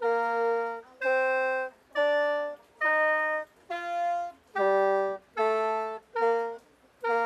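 Khaen, the bamboo free-reed mouth organ, played one note at a time through a do-re-mi scale. There are about eight reedy held notes, each just under a second, with short breaks between them.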